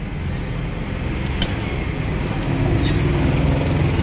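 Steady low rumble of road traffic, which grows somewhat louder in the second half. A steel ladle clinks lightly against the steel pot about a second and a half in.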